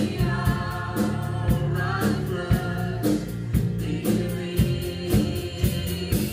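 Live worship band playing: several voices singing a hymn-like melody together over drum kit and guitars, with a steady beat of about two drum hits a second.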